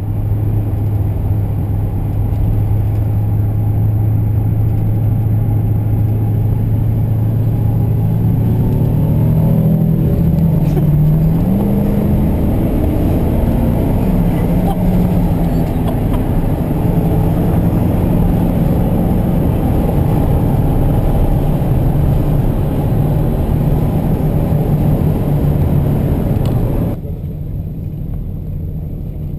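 Car engine and road noise inside the cabin, a steady hum while driving. About ten seconds in, the engine pitch climbs and changes a few times as the car speeds up. Near the end it drops quieter as the car slows.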